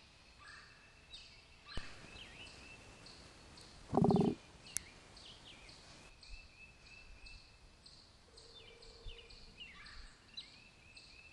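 Forest ambience of small birds chirping over a faint background hiss, with one short, loud pitched call about four seconds in and a brief sharp click just after it.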